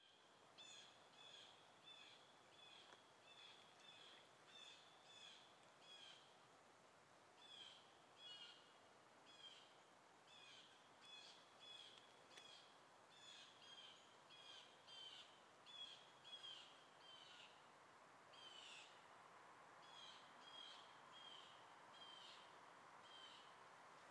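Himalayan bulbul calling: a faint, steady series of short, sharp call notes, about two a second, broken by a couple of brief pauses.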